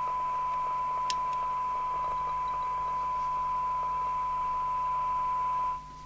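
Steady 1 kHz test tone from a Eurosonic ES200 handheld FM CB radio's loudspeaker, received from a signal generator at a weak signal level, so it comes with a bed of hiss. This is the receiver being measured for SINAD sensitivity, at about 0.95 microvolts for 12 dB SINAD. Near the end the hiss drops out and the sound gets quieter, leaving the tone on its own.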